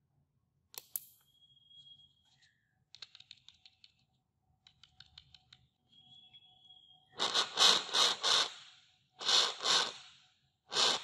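A homemade PAM8403 mini amplifier driving a small speaker from a microphone capsule: clicks and crackles as it is switched on and handled, with a brief steady high whistle twice. Then a run of loud bursts from the speaker as the microphone is tested: four quick ones, two more, then one near the end.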